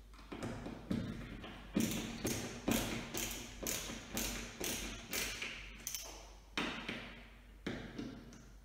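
A run of light knocks and taps, about two a second, from fitting a smoke alarm's mounting base to the ceiling.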